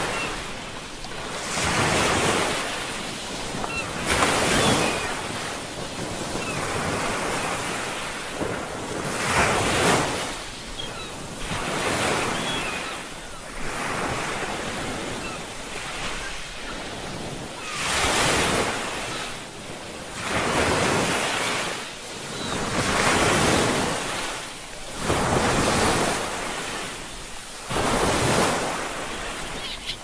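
Ocean waves breaking and washing on a shore, each wave swelling and fading in a rush of surf, a new one every few seconds.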